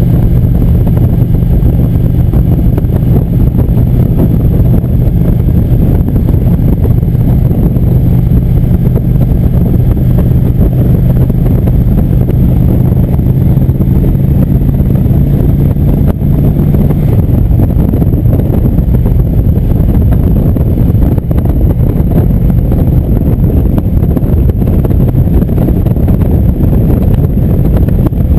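Indian motorcycle's V-twin engine running at a steady cruise with heavy wind buffeting on the microphone. The engine's steady note fades under the wind about two-thirds of the way through.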